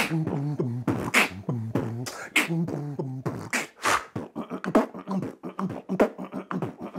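Human beatboxing: a man making drum sounds with his mouth, sharp snare-like hits falling about every second and a bit, with a low hummed tone woven between them.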